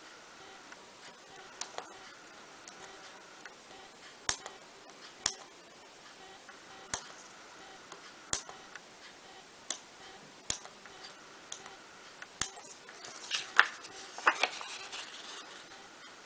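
Fine-pointed parchment-craft scissors snipping through perforated parchment paper, a sharp click every second or so. Near the end, a louder crackling rustle of the stiff parchment sheet being handled.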